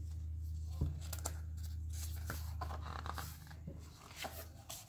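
Pages of a large picture book being turned and handled: a few short paper rustles and flaps over a steady low hum.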